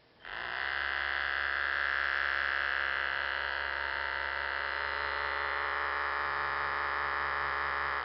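Battery-operated 1998 Imperial Queen Bee vinyl figure buzzing, its body vibrating: a steady electric buzz that starts just after the button is pressed and stops abruptly near the end.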